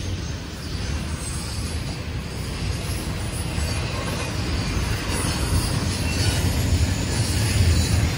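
Intermodal freight cars rolling past close by: a steady rumble of steel wheels on the rails, growing a little louder toward the end. Thin, high wheel squeal comes and goes in the second half.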